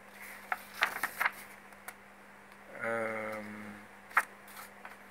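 A man's short hummed 'mmm' lasting about a second, near the middle, between scattered sharp clicks, the loudest near the end, over a faint steady hum.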